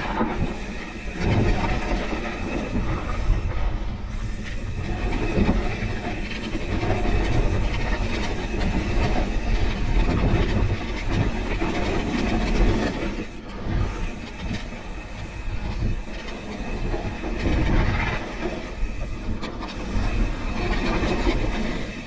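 Pivot Switchblade mountain bike rolling down a dry, loose dirt trail: tyres rumbling over sand and rocks and the bike rattling over bumps, with wind buffeting the microphone. The noise is steady but rises and falls with the terrain.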